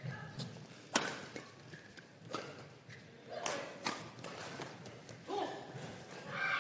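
Badminton rally: rackets striking the shuttlecock in sharp cracks about every one and a half seconds, with sneakers squeaking and feet landing on the court mat between shots.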